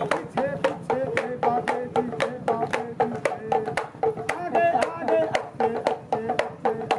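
Damru, the small hourglass pellet drum, shaken back and forth in a fast, steady beat of about six sharp strokes a second, each stroke with a short ringing tone: a dance rhythm for a performing monkey.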